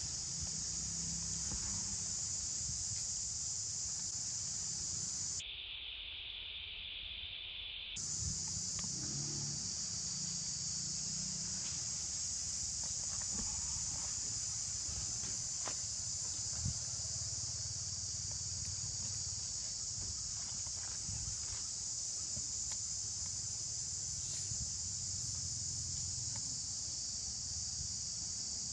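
Steady high-pitched insect chorus. About five seconds in, a lower-pitched insect buzz takes its place for two or three seconds before the high chorus returns.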